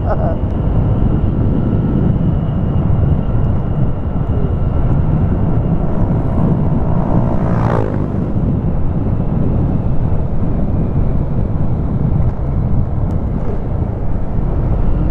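Motorcycle on the move: steady low wind and road rumble with engine noise on the rider's microphone, and a rising engine note about halfway through.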